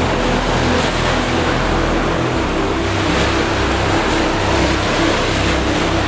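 Ocean surf washing onto a sandy beach, a steady rush of breaking waves. Under it, soft background music of held low chords, which move to a new chord about two seconds in.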